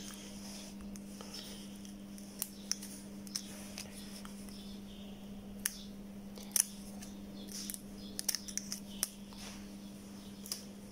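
Small irregular clicks and scratches of steel tweezers working at the tape and connector strip along the edge of a lithium-ion phone battery, over a steady low hum.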